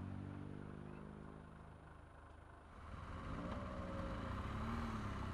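BMW R 1200 GS flat-twin boxer engine idling, then dying away about two seconds in as it is switched off. After a brief lull, another vehicle's engine comes up, its pitch rising and falling.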